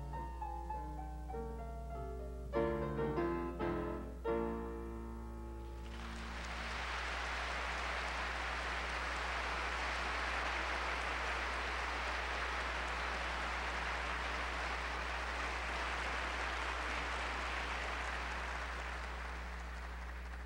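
Grand piano playing the last chords of a piece, ending about five seconds in, followed by sustained audience applause, all over a steady low hum.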